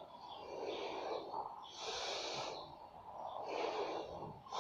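A person taking slow, deep breaths, each breath about a second of airy noise: three in a row, a deep-breathing remedy for hiccups.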